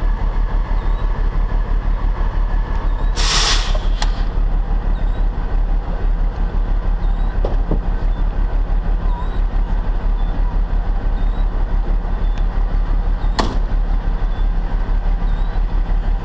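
Heavy wrecker's diesel engine running steadily, a loud low pulsing rumble. A short hiss comes about three seconds in, and a sharp click about thirteen seconds in.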